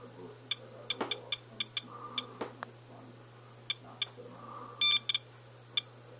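SOEKS radiation dosimeter chirping at irregular intervals, one short beep per detected particle, with one longer beep about five seconds in. It is counting a rain-soaked paper-towel sample at about 0.96 µSv/h, roughly nine to ten times background, which the owner takes for Fukushima fallout.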